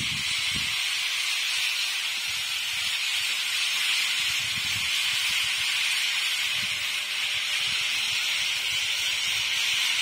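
A dense, steady, high-pitched animal chorus: a shrill, hiss-like wall of sound with no single call standing out. Faint low rumbles come and go underneath.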